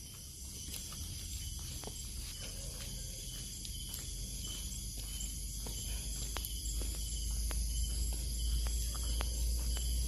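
Night chorus of crickets and other insects: a steady, high-pitched trilling in several bands, over a low hum that grows slowly louder.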